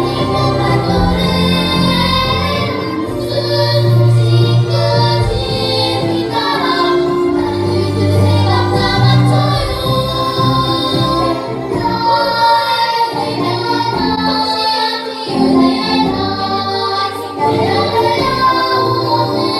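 A children's vocal ensemble singing a Korean children's song (dongyo) over musical accompaniment.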